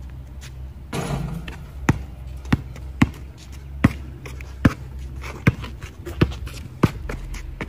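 Basketball being dribbled on a concrete driveway: eight sharp bounces at an even pace, a little more than one a second, starting about two seconds in. A short rush of noise comes about a second in.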